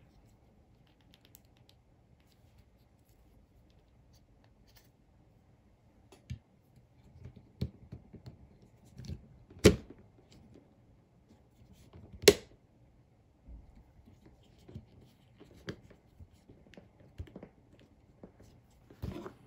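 Plastic parts of a GoPro suction-cup mount being fitted and adjusted by hand: scattered small clicks and knocks after a quiet start, with two sharp, loud clicks about ten and twelve seconds in.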